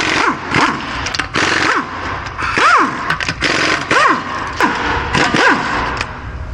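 Pneumatic impact wrench running in about six short bursts, its air-motor whine rising and falling in pitch each time, as it works the wheel's lug bolts off for a flat-tire replacement.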